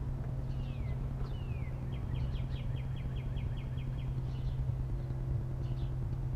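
A small engine idling steadily with a low hum. Over it a songbird calls: two falling whistles, then a fast run of about five notes a second, and a few scattered chirps.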